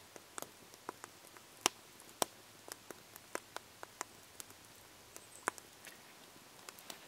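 Wood campfire crackling: irregular sharp pops and snaps, about three a second, over a faint steady hiss, with two louder pops near the middle and about five and a half seconds in.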